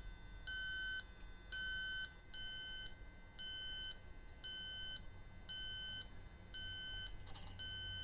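Robinair LD7 refrigerant leak detector beeping at a slow, steady rate of about one short electronic beep a second, its probe held at an R-134a test leak on a coil. The rate does not speed up, so it is not picking up the leak.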